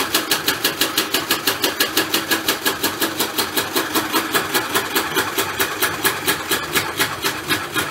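Washing machine drum turning, with a stray bra underwire caught by the heating element between drum and tub ticking against the drum rapidly and evenly, about six or seven clicks a second, over the machine's running hum.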